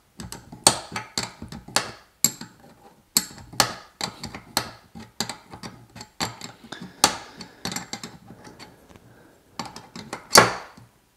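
Steel 11 mm spanner clicking and clinking against a nut on a velomobile brake as it is fitted, turned and refitted to undo the nut: irregular sharp metal clicks, with a louder clack near the end.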